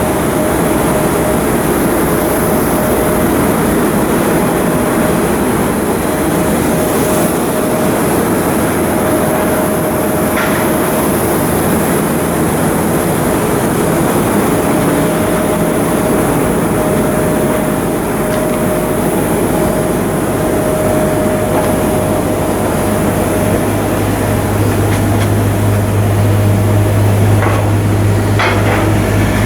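Steady din of shipyard machinery at work, with a faint steady tone running through it. A low hum comes in about two-thirds of the way through, and there are a few sharp knocks near the end.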